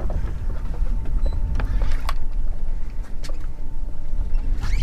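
Boat engine idling with a steady low rumble, with a few light clicks and knocks.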